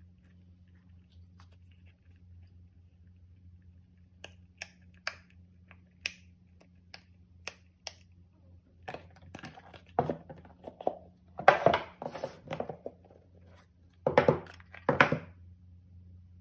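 Silicone pop-it fidget toys being handled and pressed: scattered sharp pops and clicks, then louder bouts of rubbing and squishing about two-thirds of the way in. A faint steady low hum runs underneath.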